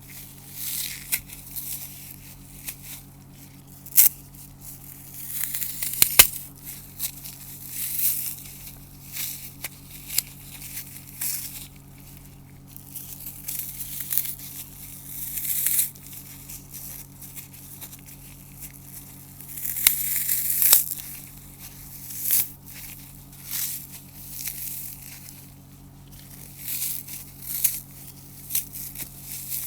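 Dry, soap-coated floral foam crunching and crumbling as it is crushed, in irregular crunches one to two seconds apart with a few sharp cracks, over a faint steady low hum.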